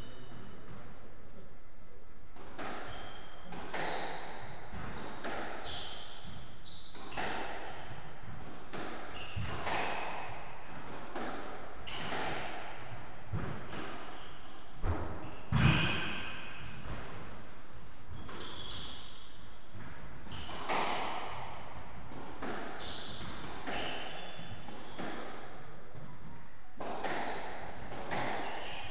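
Squash rally: the rubber ball cracking off rackets and the court walls every second or so, with shoe squeaks on the wooden floor. A heavy thud about halfway through is the loudest sound.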